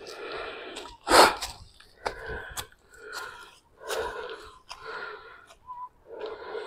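A man breathing heavily as he walks uphill, one loud breath about every second, the strongest just over a second in.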